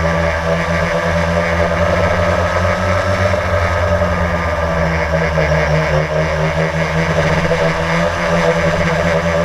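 Blade drone's electric motors and propellers buzzing steadily in flight, heard from the GoPro mounted on the drone itself.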